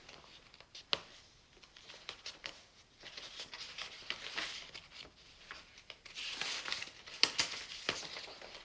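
Rustling and handling noise, like paper or card being moved, with a sharp click about a second in and several more clicks in the last few seconds.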